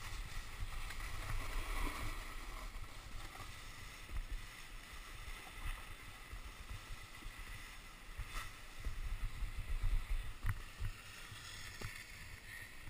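Snowboard sliding and scraping over wet, slushy snow, a steady hiss with low wind rumble on the camera's microphone and a few small knocks.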